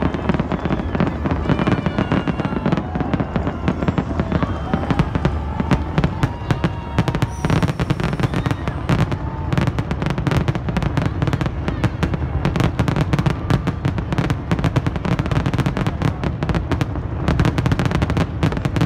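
Rooftop fireworks firing in a dense, continuous barrage of bangs and crackles, many shots following one another in quick succession.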